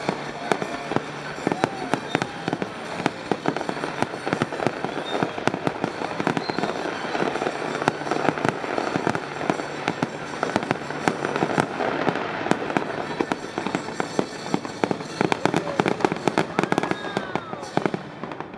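Fireworks display: a dense, unbroken barrage of bangs and crackling, many reports a second.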